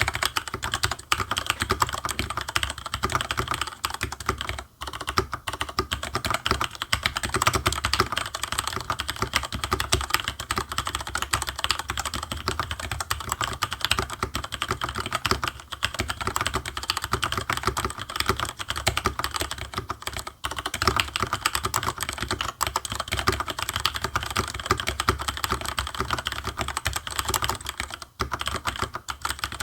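Fast, continuous typing on a TG3 Electronics mechanical keyboard with linear Cherry MX Black switches: a dense stream of key strokes, broken by short pauses about five, twenty and twenty-eight seconds in.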